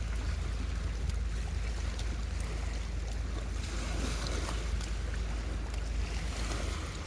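Wind buffeting the microphone outdoors: a steady low rumble under a rushing hiss, with a few faint ticks.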